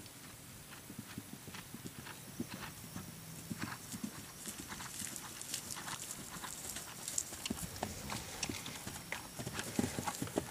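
Horse cantering on turf: a steady run of dull hoofbeats that grows louder toward the end as the horse comes nearer.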